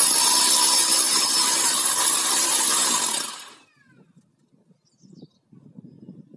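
Rotary hammer drill running in hammer mode, its masonry bit hammering into a rendered wall. About three seconds in the motor is released and winds down with a falling whine, leaving only faint low sounds.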